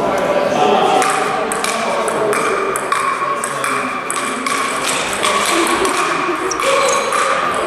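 Table tennis rally played with sandpaper bats: the ball clicking back and forth between bat hits and table bounces, about one sharp knock every half second or so, in a large echoing hall with background chatter.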